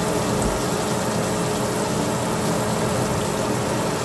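Flour-coated chicken strips deep-frying in hot oil in a pan: a steady bubbling sizzle, with a faint steady hum underneath.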